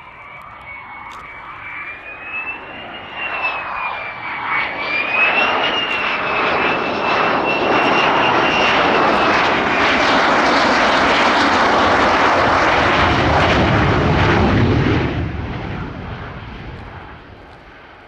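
Lockheed Martin F-35 Lightning II's Pratt & Whitney F135 jet engine as the fighter flies by: a high whine that wavers in pitch rises with a building jet noise, stays loud for several seconds, then falls in pitch and drops off about fifteen seconds in, fading away.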